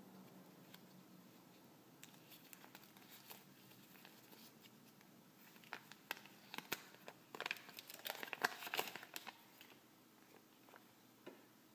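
Paper instruction leaflet from a Kinder Joy egg crinkling as it is unfolded by hand: soft crackles at first, then a louder run of crinkling from about six to nine seconds in.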